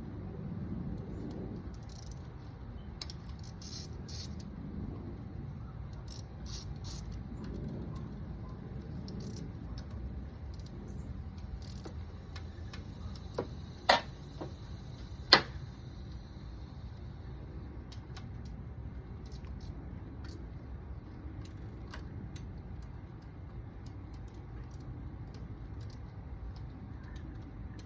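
Light metallic clinks and ticks from tools and parts being handled at the car's engine, with two sharp loud clicks about a second and a half apart midway, over a steady low background rumble.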